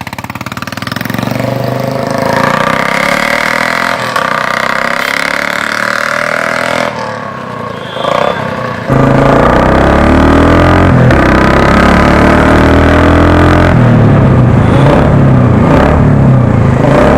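Royal Enfield Classic 350 single-cylinder engine running through a Mini Punjab 'dholki' aftermarket silencer. About halfway through it suddenly gets much louder and deeper, then revs with the pitch rising and falling.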